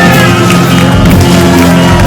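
Live rock band playing loud, with high sliding notes over the band. Some crowd cheering and shouting mixes in.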